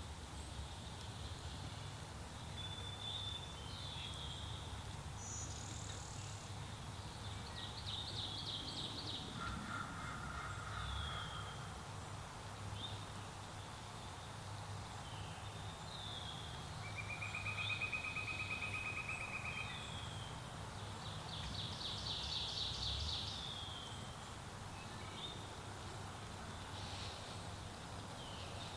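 Several small songbirds chirping and trilling, short calls scattered throughout, with a longer trill about seventeen seconds in, over a low steady background rumble.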